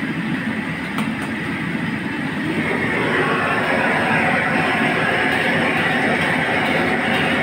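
Hot oil sizzling steadily in a wok as crab pieces deep-fry, growing a little louder about three seconds in. Two light clicks about a second in.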